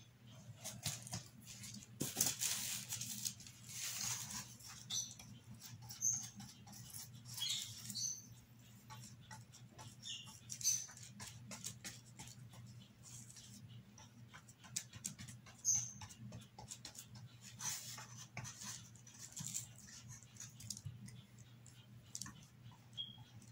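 Paintbrush strokes scratching and swishing on a cardboard cutout, in short, uneven bursts, with a few brief high squeaks, over a steady low hum.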